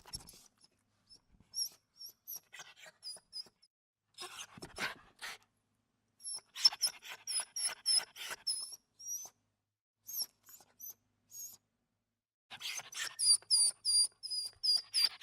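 Small dog whimpering: a series of short, very high-pitched whines in bursts, with breathy noise between some of them. Near the end they come quickly, about three or four a second.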